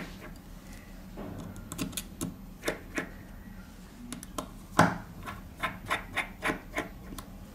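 Light, irregular clicks and taps of a small screwdriver and tools on a smartphone's frame as the charging-port screws are undone, with one louder tap about five seconds in.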